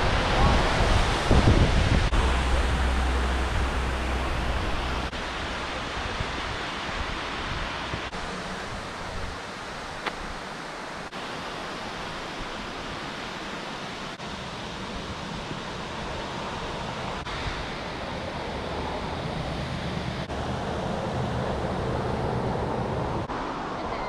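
Steady rushing roar of Multnomah Falls. It is loudest at first and drops off over the first several seconds, then stays at an even level. Wind rumbles on the microphone early on.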